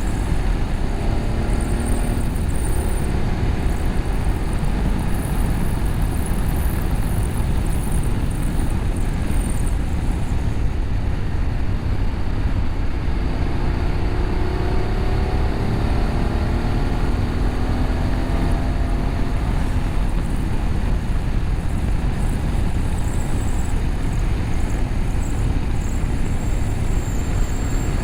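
BMW F850GS parallel-twin engine on the move through an Akrapovic slip-on exhaust with the catalytic converter bypassed; its pitch rises and falls a few times over a heavy, steady low rumble.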